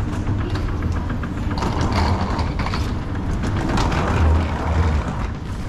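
Escalator running with a steady low rumble, while wheeled suitcases rattle off the escalator onto the landing, twice, around two and four seconds in.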